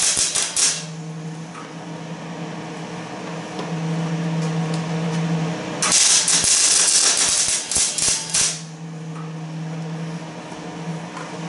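Welding: a crackling, sputtering arc in two bursts, briefly at the start and for about two and a half seconds in the middle, over a steady machine hum.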